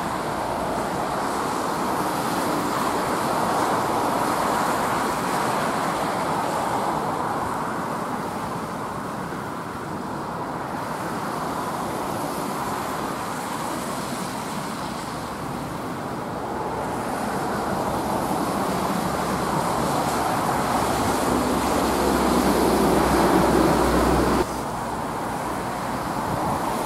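Steady outdoor wind noise over water, with a low rumble that builds over the last few seconds and then cuts off abruptly near the end.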